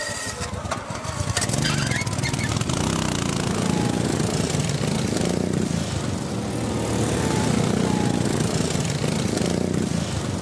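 Many ride-on racing lawn mower engines running together in a dense, loud drone, with engines revving up and down a couple of seconds in.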